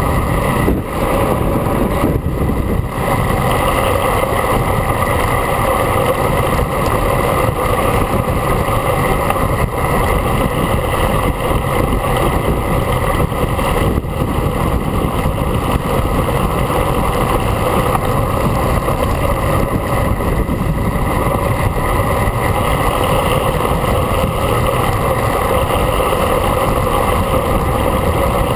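Loud, steady wind rush over a handlebar-mounted camera on a road bike descending a mountain road at speed.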